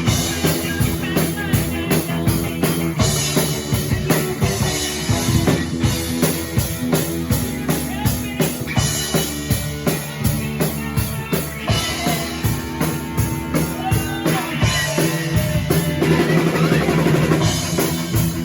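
Music with a drum kit, bass drum and snare keeping a steady beat over sustained bass and other instrument notes.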